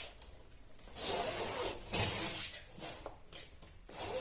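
Self-adhesive scrim tape being pulled off the roll and rubbed down along a plasterboard joint: rustling and rubbing with a few short clicks, starting about a second in.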